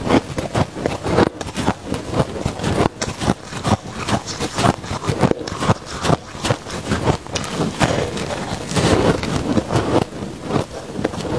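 Freezer frost ice being bitten and chewed close to the microphone: a dense, unbroken run of crisp crunches and crackles, with louder bites now and then.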